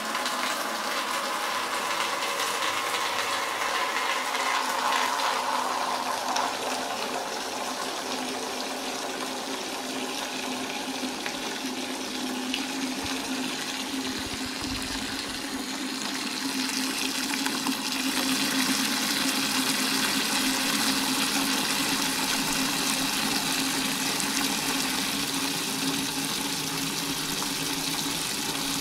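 Water from a bathroom tap running into a plastic bucket, a steady gushing splash as the bucket fills; it grows a little louder and brighter a little past halfway.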